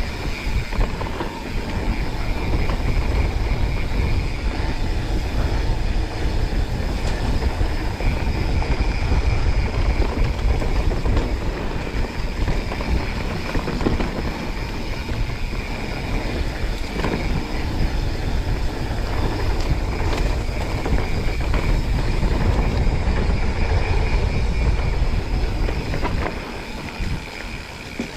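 Mountain bike riding down a dirt trail at speed: a steady, loud rush of wind on the microphone mixed with tyre noise and the rattle of the bike over rough ground.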